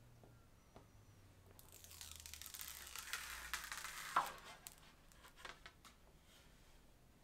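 Plastic film being peeled off a glass screen protector: a crackly, tearing hiss lasting about three seconds that ends in a sharp click, followed by a few faint ticks.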